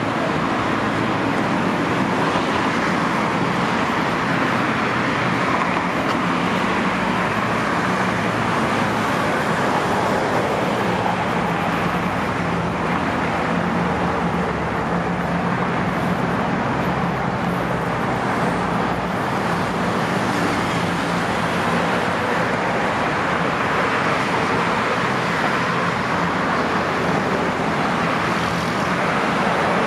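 Steady road traffic on a busy multi-lane road: cars passing close by in a continuous wash of engine and tyre noise, with no sudden events.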